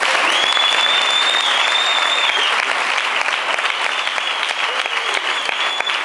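An audience applauding, dense clapping at the end of a speech, with a thin high tone held over most of it.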